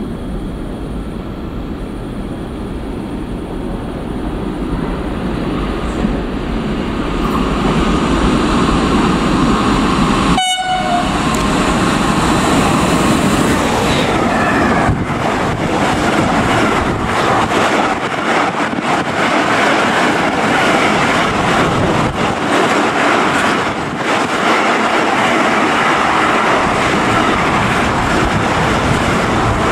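Freight train approaching and running through a station at speed. Its rumble builds over the first several seconds, with a brief sharp sound about ten seconds in, then the wagons pass with steady rolling noise and rattling, clattering wheels.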